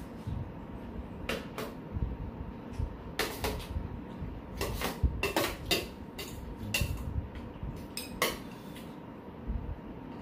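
Metal spoons and chopsticks clinking and scraping against a stainless steel bowl of bibimbap as it is stirred and scooped: a scattered run of sharp, lightly ringing clinks.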